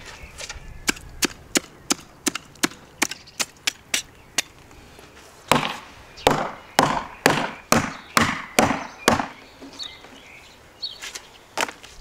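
Knife scraping scales off a large whole fish on a wooden table. It starts as a run of sharp quick clicks, then turns to about eight longer scraping strokes, two or so a second, with a couple of last clicks near the end.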